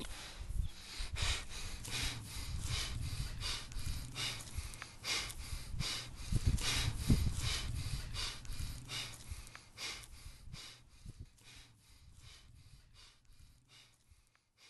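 A person breathing hard and fast, loud rhythmic panting at about two to three breaths a second over a low rumble, fading away near the end.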